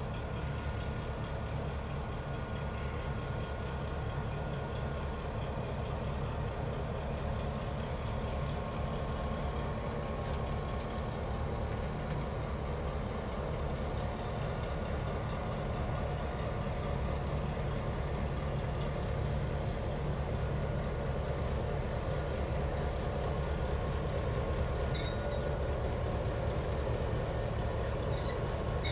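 Diesel-electric locomotive T342, a Victorian Railways T class with an EMD two-stroke diesel engine, running light at low speed. The engine runs steadily and grows a little louder as the locomotive draws close, with brief high squeals near the end.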